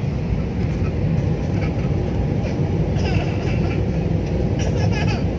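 Steady roar of engines and airflow heard inside the cabin of an AirAsia Airbus A320-family jet descending toward landing.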